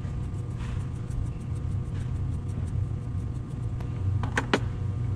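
Steady low background rumble, with two quick light clicks a little over four seconds in as small metal tool parts are handled.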